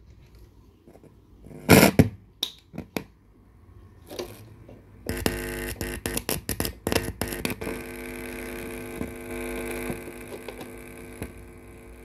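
Pops and crackles through a Victor boombox's speakers as an aux cable plug is worked in and out of a jack. About five seconds in, a steady electrical buzz with crackles over it comes in and holds, as from a loose or partly seated aux connection.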